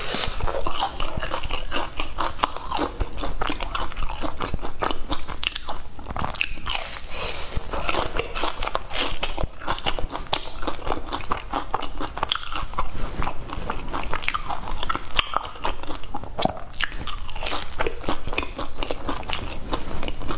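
Crunching and chewing of deep-fried glutinous rice cakes (you zha gao): the crisp fried crust crackles in quick, dense, irregular bites.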